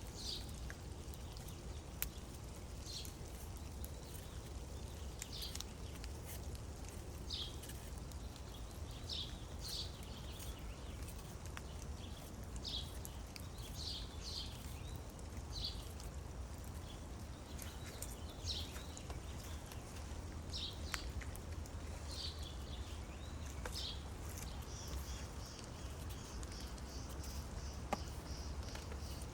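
Small birds calling with short, high chirps every second or two, over a low steady rumble. Near the end comes a quicker run of higher notes, and there are a few sharp clicks.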